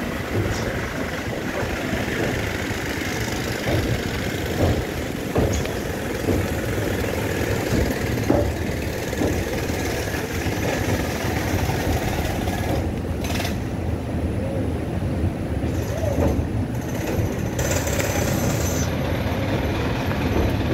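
Express train running, heard from on board: a steady rumble with irregular sharp knocks from the wheels on the track.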